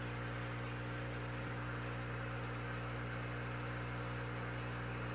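Steady electrical hum, even and unchanging, over a faint hiss.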